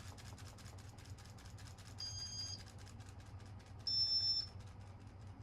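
Casablanca Victorian ceiling fan running in demo mode: its piezo beeper gives two short high beeps, about two seconds and four seconds in, over the motor's low hum and a rapid, steady ticking.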